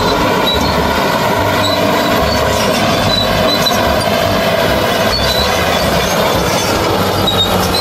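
Toy bulldozer's built-in electronic sound effect: a loud, steady recorded engine-and-machinery noise with short high tones dotted through it, played from the toy's small speaker.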